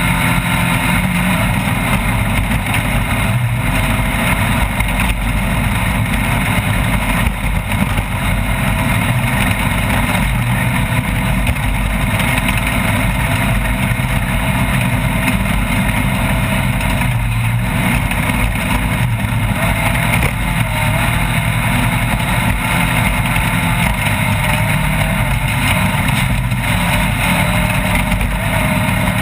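Off-road race car's engine running hard, its pitch wavering up and down with the throttle, over a dense steady rush of road and wind noise.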